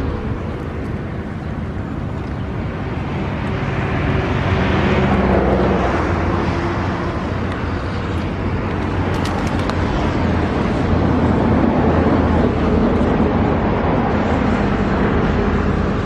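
A small engine droning steadily under a continuous rushing noise, louder from about four seconds in.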